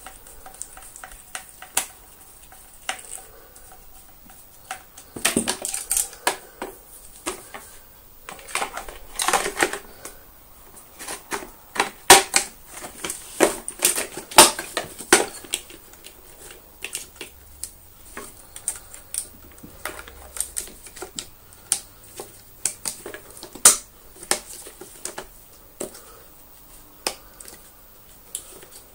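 Hard plastic parts of a Dyson DC24 vacuum cleaner being handled and fitted together onto its motor ball: an irregular string of clicks, knocks and rattles, busiest in the first half, with a few sharp snaps.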